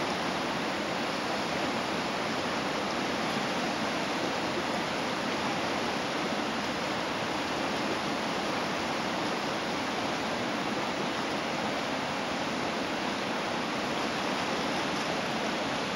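Whitewater river rapid, a steady rushing noise of churning water.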